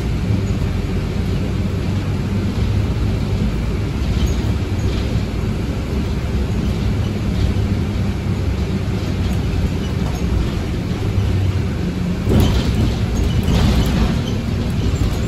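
Temsa Avenue Plus city bus heard from inside the passenger cabin while driving: a steady low engine and road rumble, with a couple of brief rattles near the end.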